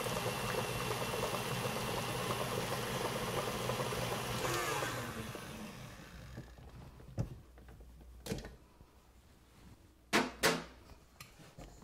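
Tilt-head electric stand mixer running steadily as it whips a butter crumble, then switched off about four and a half seconds in, its motor whirring down. A few short knocks follow, as the mixer head is raised.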